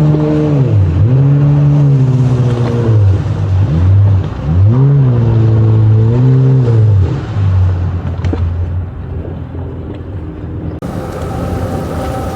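An engine revving up and down in three or four surges, its pitch climbing and dropping each time, then fading away. Near the end it cuts off abruptly.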